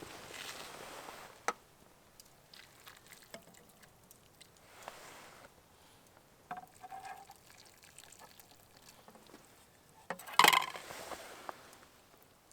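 Camp cooking gear being handled: scattered light clicks and knocks, with one short, much louder rushing noise about ten seconds in.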